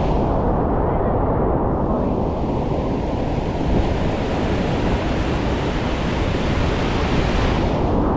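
Rushing whitewater of a river rapid, a steady loud roar of water; about two seconds in the hiss grows brighter and it eases back near the end.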